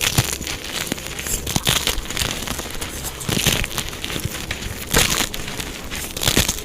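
Dyed gym chalk blocks being crushed: a dense, crumbly crunching and crackling made of many small cracks. A few louder crunches stand out, the strongest about five seconds in and again near the end.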